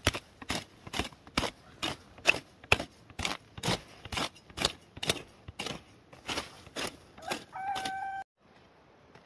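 Sharp rhythmic strikes, about two a second, keep an even pace. Near the end comes a short call held on one pitch, and then the sound cuts off abruptly.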